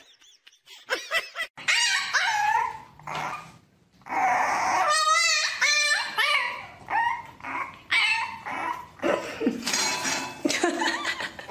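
Puppies whining and yipping: a series of short, high-pitched, wavering calls, quickest and densest about five seconds in.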